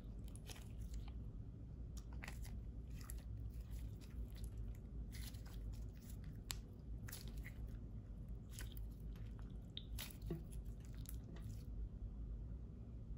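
Clear slime being squeezed, stretched and folded by hand: irregular sticky clicks and pops, several a second, as the slime pulls apart and presses back together.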